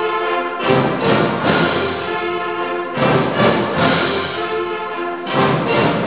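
Concert band of woodwinds, brass and percussion playing sustained full chords. A new accented chord with deep bass comes in three times, roughly every two and a half seconds.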